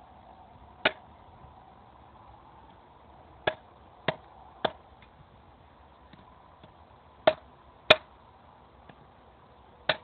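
Hardened steel blade chopping an 80 mm steel nail laid on a sledgehammer head: about seven sharp metallic strikes at uneven intervals, with a few fainter taps between, the loudest a little before the end. The chops test the hardness of the freshly heat-treated edge.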